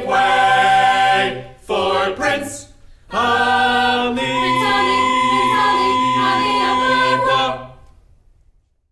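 Mixed-voice a cappella choir singing the closing of a Broadway-style show tune: two short sung phrases, then a long held final chord from about three seconds in, released near the end.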